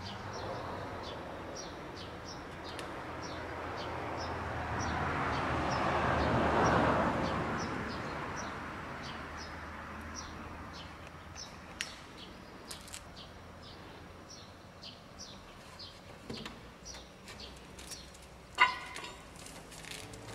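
A small bird chirping over and over, short high chirps about twice a second. Under it a broad rush of noise swells to its loudest about a third of the way in and fades away, and one short louder call comes near the end.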